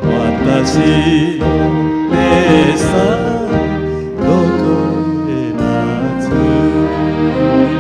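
A man singing an old Japanese popular song in a lilting melody over a karaoke backing track of orchestra and strings.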